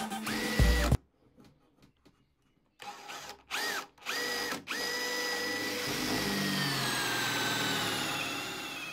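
Cordless drill boring with a 40 mm Forstner bit into a hardwood table leg. It runs briefly and stops about a second in, then after a pause gives three short trigger bursts, each with the motor whine rising. From about halfway it settles into a steady run, whose whine drops slightly in pitch near the end.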